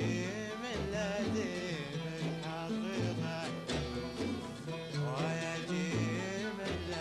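A man singing a Kuwaiti sawt song in a winding, ornamented melody to oud accompaniment, with steady low notes underneath.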